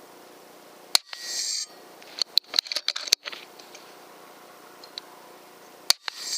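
Two shots from an FX Impact M3 PCP air rifle about five seconds apart, each a sharp crack followed by a short hiss. Between them comes a quick run of metallic clicks, the rifle's side lever being cycled to load the next pellet.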